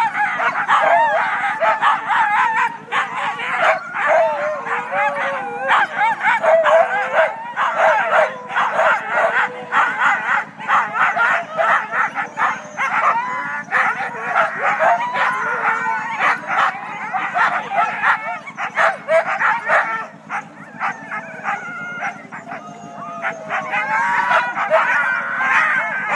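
A team of harnessed Siberian huskies barking, yelping and howling all at once in an unbroken chorus, worked up and eager to pull just before the start of a sled race.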